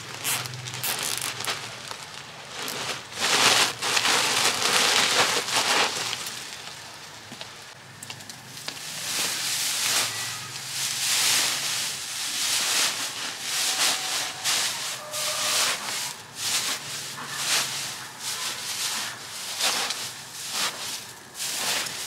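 A woven plastic sack rustling as it is folded and tucked into a plastic basket, then dry straw crackling and rustling as it is heaped and pressed down over it.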